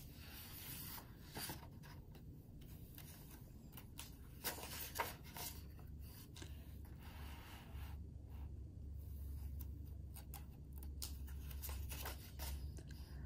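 A hardcover picture book handled and its pages turned by hand: faint paper rubbing and rustling with a few soft knocks.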